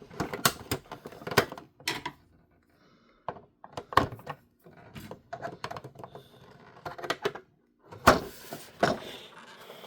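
Plastic toy parts and a small screwdriver being handled on a tabletop: irregular clicks, taps and knocks of hard plastic, with a louder clatter about eight seconds in.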